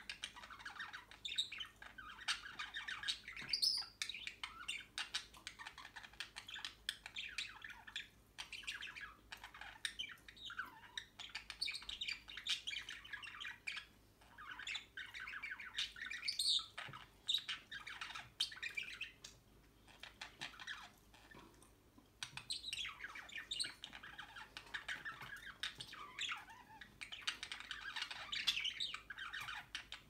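Budgerigars chattering and warbling in a continuous run of quick twittering notes mixed with sharp chirps and squawks, with a few short lulls.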